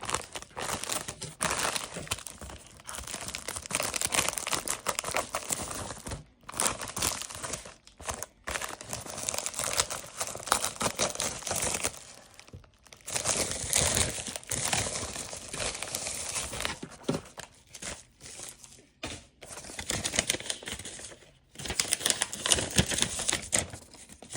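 Packaging being unwrapped by hand: crinkling and crumpling of wrapping with some tearing, in irregular bursts broken by brief pauses.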